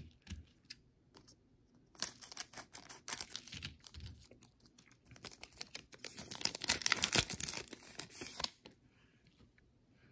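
A plastic trading-card pack wrapper being torn open and crinkled, in two spells of crackling: one about two seconds in and a longer one from about five and a half to eight and a half seconds.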